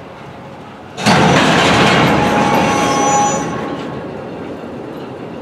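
A sudden loud blast of compressed air hissing from a freight train's air brake system, starting about a second in with a faint whistle in it, then dying away after about three seconds.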